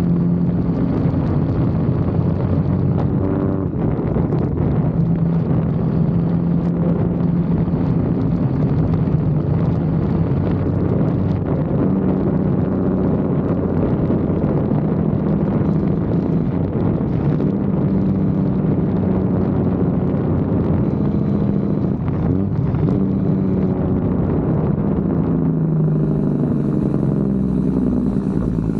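Freightliner semi truck's diesel engine running as the truck drives down the road: a steady drone whose pitch steps and shifts a few times along the way.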